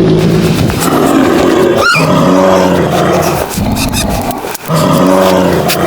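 Cow mooing, three long, loud moos one after another.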